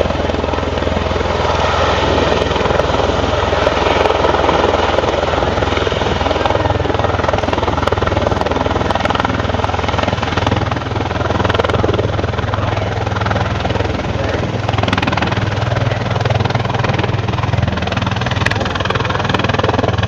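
Helicopter flying overhead, its rotor and engine noise loud and steady, with a constant low rotor beat.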